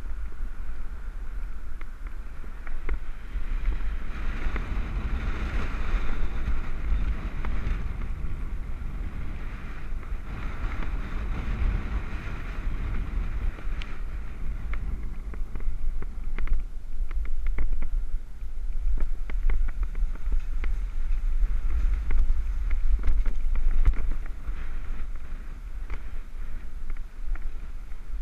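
Wind buffeting a helmet-mounted action-camera microphone while cycling, a steady rushing rumble that rises and falls with the ride, with scattered light clicks and knocks mostly in the second half.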